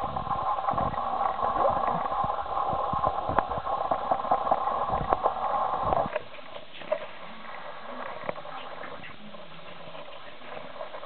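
Dogs' claws clicking and pattering on a wooden floor as a young puppy and an adult dog move about. A steady background whir runs under the clicks and cuts off suddenly about six seconds in.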